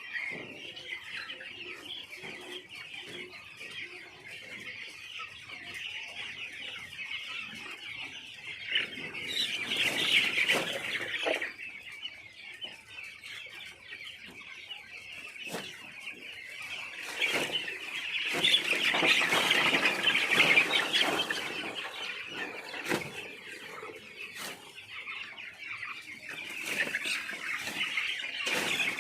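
A large flock of young chicks in a poultry shed peeping all together in a dense, continuous high-pitched chorus, swelling louder about ten seconds in and again around twenty seconds.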